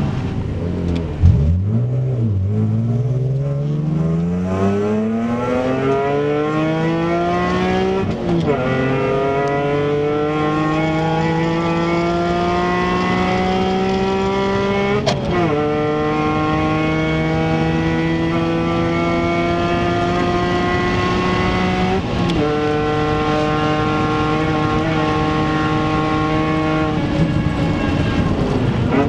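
BMW Z4 M Coupé's 3.2-litre straight-six at full throttle, heard from inside the cabin. The revs climb steadily and drop sharply at each of three upshifts, roughly seven seconds apart, as the car accelerates hard.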